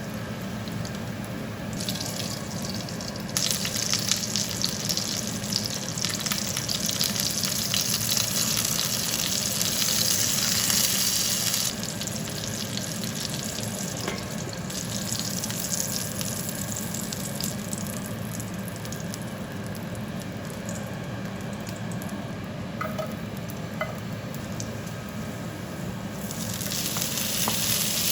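Food sizzling as it fries in a pan, the sizzle getting louder for a long stretch a few seconds in and again near the end, over a steady low hum.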